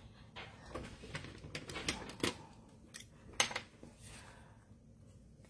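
Small scissors snipping masking paper around a stamped image (fussy cutting), with paper handling: a string of short, sharp snips and clicks, the loudest a little past the middle.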